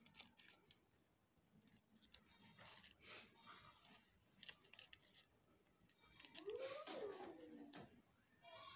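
Faint rustling and light clicks of hands handling a glitter foam-sheet flower. About six seconds in, a faint wavering call rises and falls for about a second and a half.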